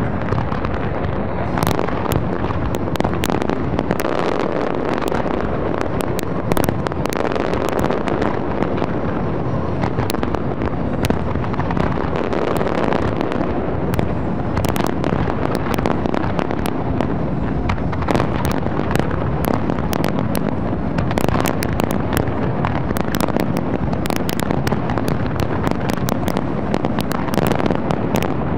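Large fireworks display at full barrage: a continuous stream of sharp bangs and crackling shell bursts, several a second, over a constant wash of noise that never lets up.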